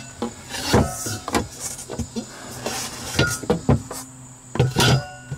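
Irregular knocks and scraping of things being handled on a wooden countertop, the loudest clatter near the end. A faint steady low hum comes in about halfway through.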